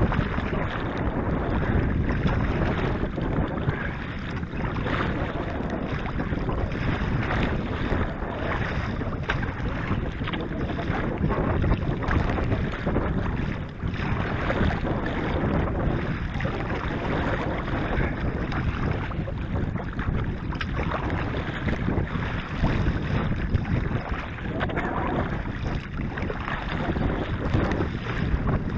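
Wind rushing over the microphone, with choppy lake water splashing against a kayak's bow.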